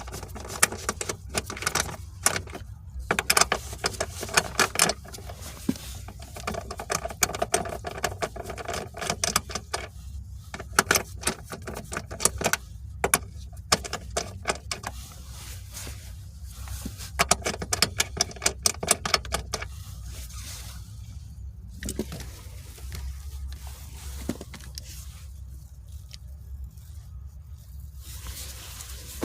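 Hand tools working on a car's manual shifter mounting: many short metallic clicks and clattering as the 13mm bolts and the shifter linkage are undone, coming in dense runs with brief gaps.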